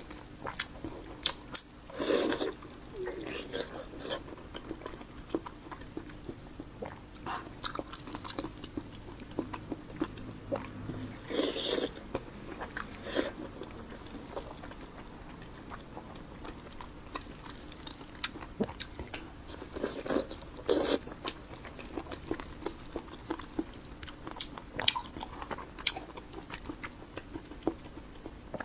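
Close-miked eating of cured pork: repeated biting and chewing with wet mouth clicks and smacks, and a few louder bites now and then.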